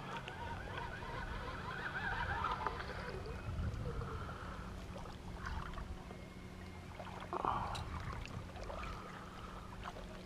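Bass boat's bow-mounted electric trolling motor humming steadily on calm water, with a few goose honks in the first few seconds and a short knock or splash about seven and a half seconds in.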